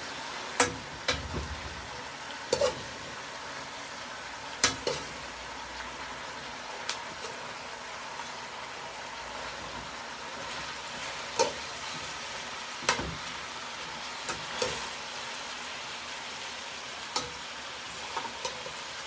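Bell pepper strips and sliced onions sizzling in a frying pan with a steady hiss, while a metal spoon stirs them and now and then knocks against the pan with a sharp clack.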